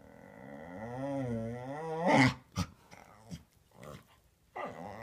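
Samoyed "talking": one long, wavering, drawn-out vocal of about two seconds that grows louder and breaks off in a short loud burst. It is a bid for attention: he wants to be talked to.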